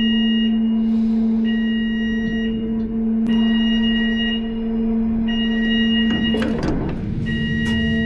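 Ship's cargo hatch-cover machinery running with a steady hum while a warning beeper sounds in repeated one-second beeps about a second apart, signalling that the hatch covers are moving. A few metallic clanks come about six seconds in.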